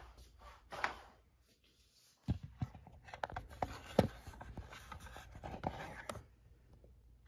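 Close handling noise from a phone being moved and set in place: rubbing and scraping against the microphone with a run of small clicks and knocks for a few seconds, the sharpest about four seconds in, then it settles.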